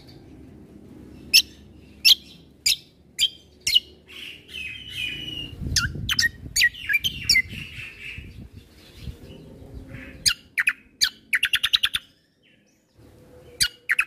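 A kecial kombo (cucak kombo) songbird singing loud, sharp, falling chirped notes one after another. Near the end it gives a fast, even trill of about ten notes, and a low background rumble runs under the song through the middle.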